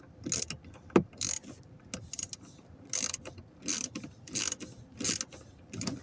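Hand ratchet with a 9/32 socket on an extension clicking in short bursts, about eight strokes, as it turns the cabin air filter cover bolts. A sharper click comes about a second in.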